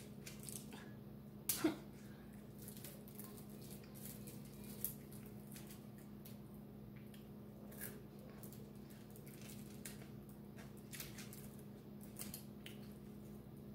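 Faint sounds of eating with the hands: soft clicks, rustles and chewing as rice and fish are picked from a foil tray, over a steady low hum. A brief falling squeak about a second and a half in.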